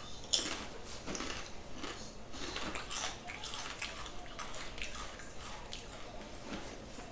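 A man chewing a mouthful of a vegan turkey club sandwich close to the microphone, with a run of irregular crunches and mouth clicks. The sharpest crunch comes just after the start.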